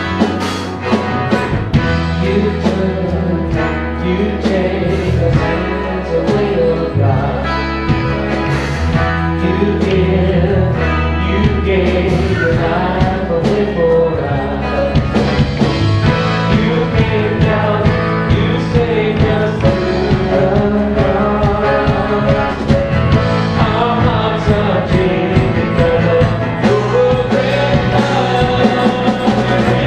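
Live song: a man sings lead while strumming an amplified acoustic-electric guitar, with a woman singing backing vocals.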